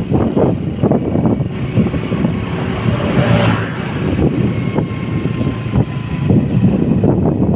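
Wind buffeting the microphone of a motor scooter in motion, over the steady noise of its engine and tyres on the road.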